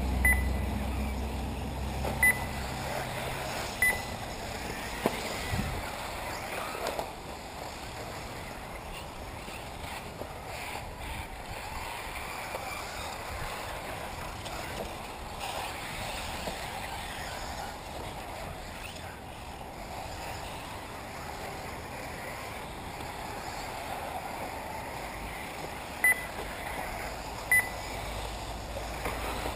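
1/8-scale electric RC buggies running on an off-road track, a steady hiss of motors and tyres, broken by five short high beeps: three in the first four seconds and two near the end.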